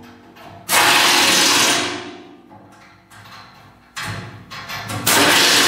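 Pneumatic impact wrench running in two bursts of about a second each, tightening the bolts of a new cutting edge on a tractor loader bucket, each burst tailing off as the air motor winds down. A dull thump comes between them.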